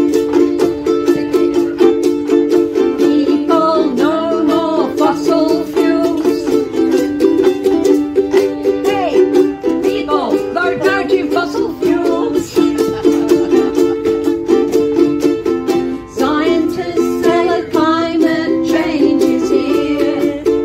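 Two ukuleles strummed in a steady rhythm, with a woman's voice singing over them in phrases that come and go.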